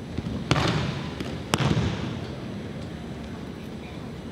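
Two sharp slaps, each with a dull thud, about a second apart: aikido breakfalls as the thrown partner's body and arm strike the tatami mat.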